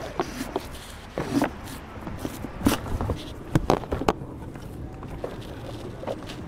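Scattered short rustles and knocks of close handling, with a few brief, faint murmured sounds from a voice.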